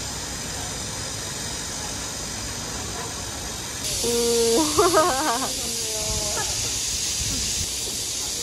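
A steady hiss that gets louder about four seconds in, with a brief pitched sound in the middle.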